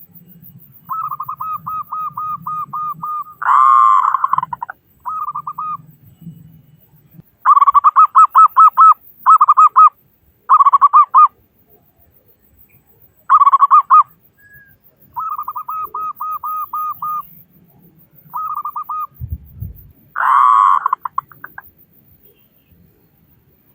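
Zebra dove (perkutut) cooing in repeated phrases of quick, evenly spaced coo notes, each phrase lasting one to three seconds with short pauses between. The loudest, harsher-sounding phrases come about four seconds in and again near the end.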